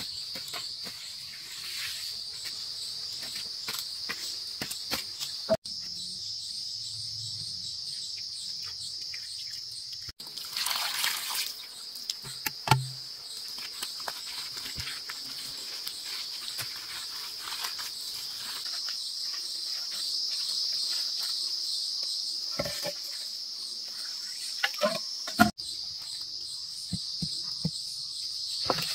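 Steady, high, trilling chorus of insects, with scattered short knocks and clicks of hand work over it and a brief rustling rush about eleven seconds in.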